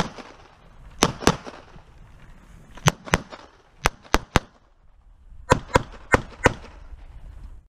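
Pistol shots fired rapidly, about eleven in all, mostly in quick pairs a quarter-second apart with short gaps between the pairs.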